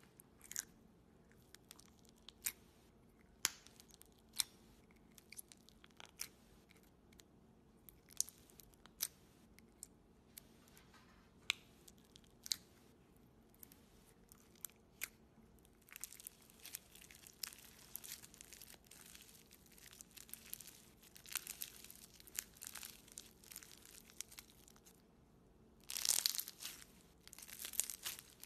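Clear slime packed with clear beads being poked and then stretched and folded by hand: scattered sharp pops and crackles at first, turning into dense crackling from about halfway through, loudest near the end.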